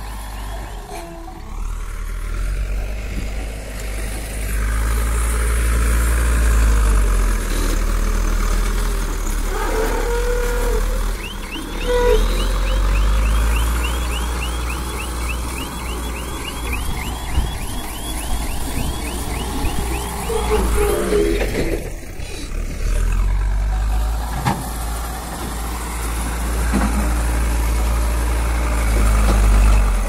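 Cat 424B backhoe loader's diesel engine running and rising and falling under load as the loader bucket works the soil. A fast, high repeating chirp sounds for about ten seconds in the middle.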